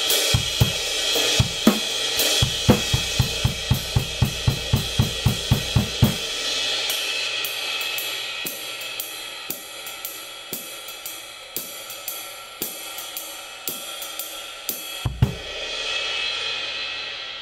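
Kingdo Collection Extreme 20-inch ride cymbal played on a drum kit: a groove with kick and snare under the ride's wash for about six seconds, then the ride tapped alone about twice a second. Near the end comes one loud accented hit with the bass drum, and the cymbal rings on and fades.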